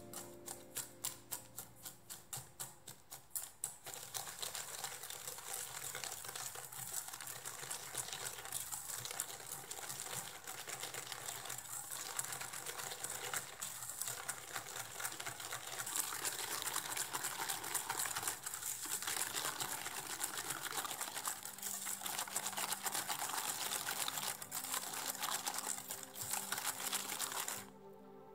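Wire balloon whisk beating egg yolks and caster sugar in a stainless steel bowl, the wires clicking and scraping against the metal. It starts with separate strokes, about three a second, then goes fast and continuous, and stops shortly before the end.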